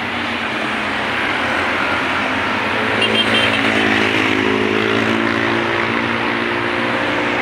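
Road traffic passing: cars, minibuses and motorcycles driving by with their engines running and tyres on the road. One engine swells and falls as it passes in the middle, with a few short high beeps about three seconds in.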